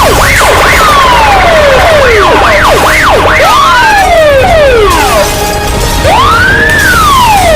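Several siren wails and whoops layered over one another, their pitch sweeping up and falling again in quick, overlapping swoops over a steady low rumble, as in a chaotic noise track made to desensitize protection dogs.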